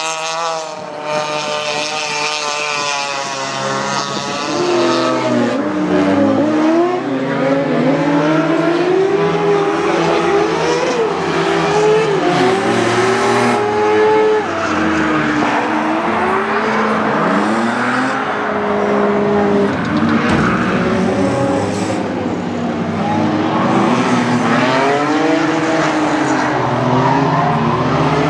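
Race car engines running hard around a circuit, one car after another: held at steady high revs at first, then the pitch repeatedly climbs and drops sharply as the drivers change gear and lift off.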